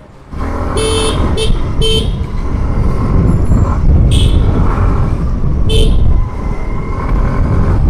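Riding noise from a moving Aprilia SR 160 scooter: a steady low rumble of wind and engine. A vehicle horn beeps in short toots, three in quick succession about a second in, then two single toots later.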